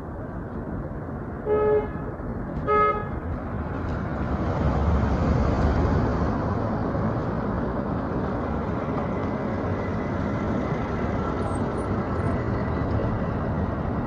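A vehicle horn gives two short toots about a second apart, over steady street traffic noise; a few seconds later a louder low rumble swells and fades, like a vehicle passing close.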